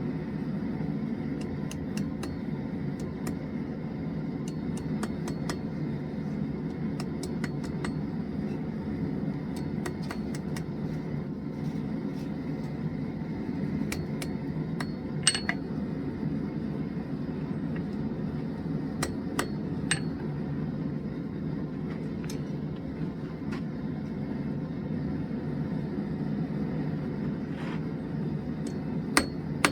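Scattered, irregular hammer taps on hot drill-bit steel against an anvil, with a couple of sharper strikes about halfway through and near the end, while the forge runs steadily underneath.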